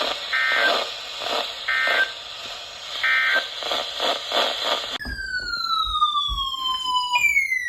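Emergency Alert System broadcast alert sequence: three short bursts of digital header data tones over a rhythmic noisy background, then a siren-like alert tone sliding down in pitch about five seconds in, starting a second downward sweep near the end. These signal a new severe thunderstorm warning about to be read.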